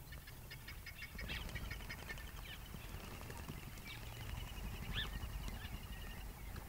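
Birds calling in fast chattering trills over a steady low rumble.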